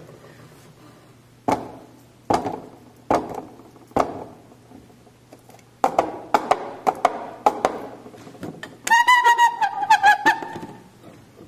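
Coconut-shell halves clopped on a wooden board as a radio sound effect of horse hooves: slow single clops at first, then quicker ones like a trot. Near the end a wavering high tone sounds over the clops for about a second and a half.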